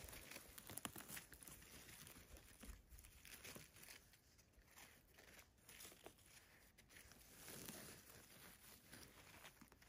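Faint rustling and crackling of moss and pine needles as a hand digs in and picks chanterelle mushrooms, with scattered small snaps.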